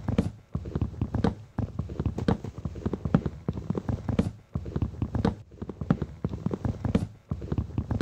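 Hammer driving a chisel under the bark of a frozen log: rapid, sharp knocks many times a second, in runs of about a second with short pauses between.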